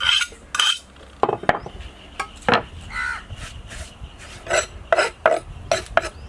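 A series of sharp clinks and knocks from cooking utensils and dishes being handled, with a brief pitched call about three seconds in.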